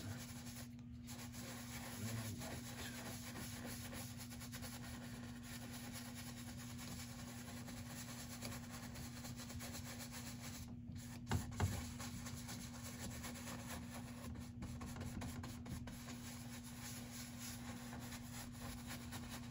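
Paintbrush bristles rubbing and scrubbing thin acrylic paint across a stretched canvas in continuous strokes while blending clouds. There are two light knocks about eleven seconds in.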